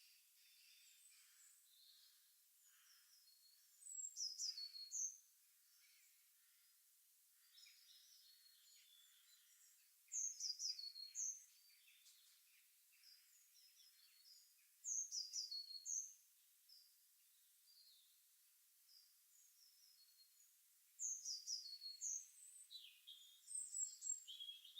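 Songbirds singing: one bird repeats a short phrase of quick, high, downward-sliding notes about every five or six seconds, with softer chirps from other birds in between.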